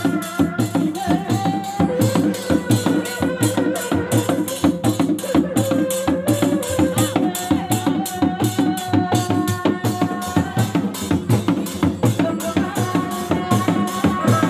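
A Sundanese reak ensemble plays live: dog-dog frame drums are beaten with sticks in a steady, dense interlocking rhythm of about four strokes a second. Over the drums, a tarompet reed shawm plays a held melody that wavers and steps between pitches.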